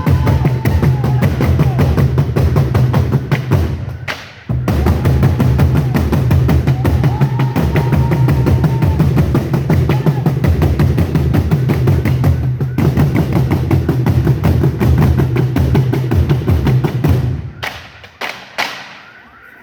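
African drums played in a fast, dense rhythm with a heavy low beat. They break off briefly about four seconds in and stop near the end.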